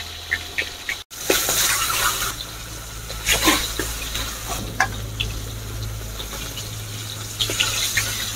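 Fish pieces sizzling as they fry in hot mustard oil in a kadhai, a steady hiss, with a few short clinks of a spatula against the pan.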